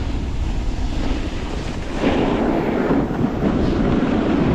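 Wind buffeting the microphone of a camera carried by a snowboarder riding downhill, with the hiss of the board sliding over snow; the rushing gets fuller about two seconds in.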